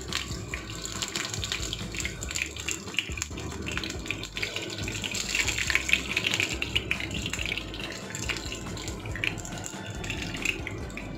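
Potato hash brown patties frying in shallow hot oil in a pan: a steady crackling sizzle, a little louder around the middle, as the patties are turned over.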